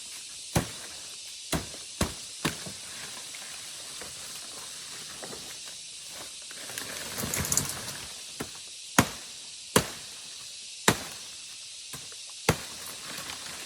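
Sharp chopping strikes of a blade cutting palm leaves, four in quick succession and then four more spaced about a second apart after a pause, with a brief rustle between them. A steady high hiss runs underneath.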